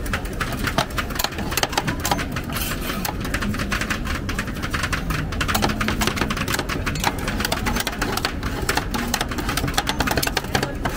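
Two metal spatulas rapidly chopping and scraping ice cream mix on the steel cold plate of a rolled ice cream stand: a dense, irregular clatter of metal tapping on metal.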